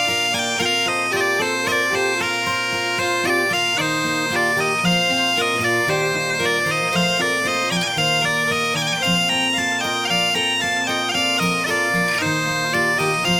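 Bagpipe music: a melody moving from note to note over a steady drone.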